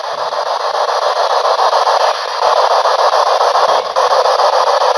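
P-SB11 spirit box sweeping rapidly through radio frequencies: a loud, steady hiss of radio static, finely chopped by the fast sweep, getting a little louder about halfway through.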